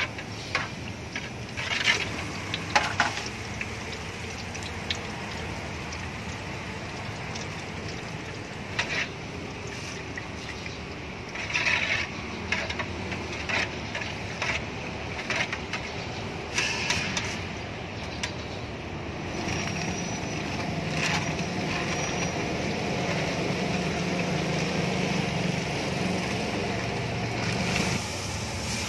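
Scattered clinks and clatters of metal cooking utensils, a wire strainer and tongs against a large frying pot and metal trays, over a steady background hiss and hum. The hum grows louder about two-thirds of the way in.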